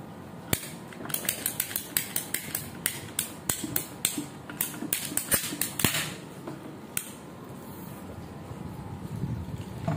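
Ratcheting PVC pipe cutter clicking as its blade is squeezed shut through a 3/4-inch PVC riser pipe. A rapid run of sharp clicks starts about half a second in, ends around six seconds, and one last click comes near seven seconds.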